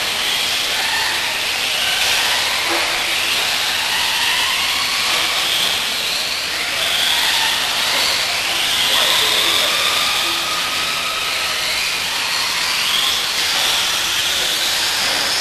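Several electric radio-controlled off-road buggies racing on a dirt track: a steady hiss of motors and tyres, with motor whines rising and falling as the cars speed up and slow down.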